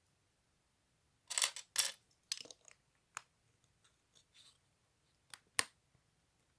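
LEGO plastic pieces being handled and snapped together: two loud rustles about a second and a half in, then softer scattered handling sounds and two sharp clicks, the louder one near the end.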